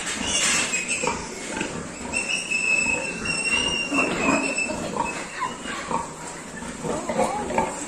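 Piglets in a pen grunting and squealing, with one long high-pitched squeal from about two seconds in to about halfway.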